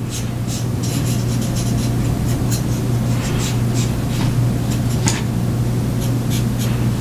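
A fingertip rubbing black pastel pigment onto a plastic model-kit part: short, irregular scratchy strokes, weathering its edges. A steady low hum runs underneath.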